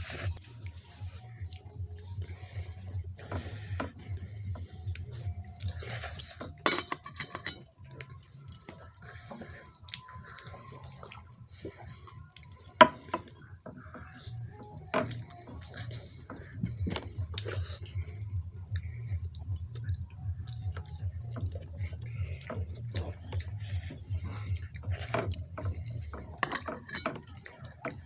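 Wet eating sounds of thin, watery khichuri and fried potatoes: smacks, squelches and chewing, with scattered clicks of a plate or utensil and one sharp click about halfway through. A steady low hum sits underneath and drops out for a few seconds in the middle.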